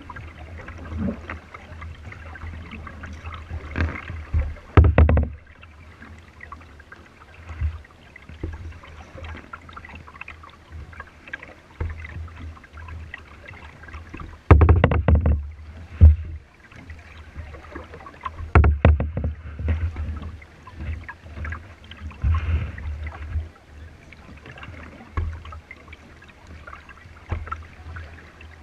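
Paddling a plastic kayak on a river: splashes of paddle strokes and water lapping at the hull, broken every few seconds by louder bursts with dull low knocks.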